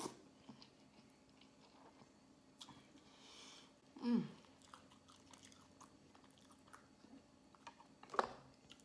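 A person chewing a mouthful of instant ramen noodles with soft, wet mouth clicks. A short hum that falls in pitch comes about four seconds in, and another short sound comes near the end.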